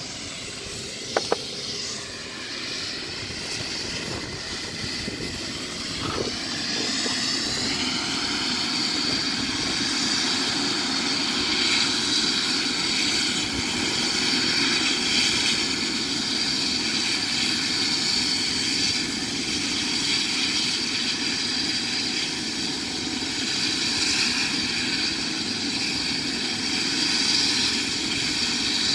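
Air ambulance helicopter running on the ground before take-off: a steady turbine whine over the rotor noise. About seven seconds in, the whine rises in pitch and grows louder. Two sharp clicks come about a second in.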